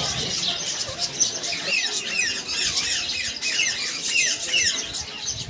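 A flock of parrots chirping, with many short falling calls overlapping continuously.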